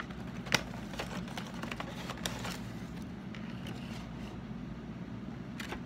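Cardboard box and plastic packaging being opened and handled: scattered clicks and crinkles, the sharpest about half a second in, over a steady low hum.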